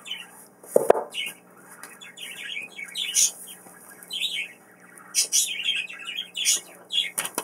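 Pet birds chirping and calling over and over in short bursts, with a single sharp knock about a second in.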